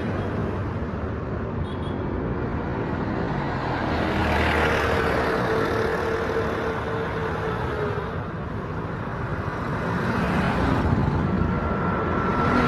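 Street traffic: motor vehicles running past close by, their engine noise swelling about four seconds in and again near the end.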